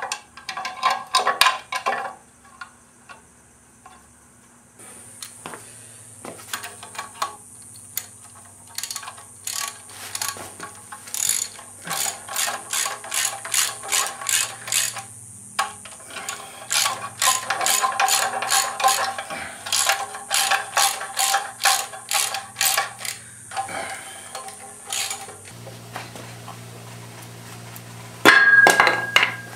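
Ratchet wrench clicking in quick repeated runs as the flywheel bolts are run down on a Ford 302 V8's crankshaft, with a louder clatter near the end.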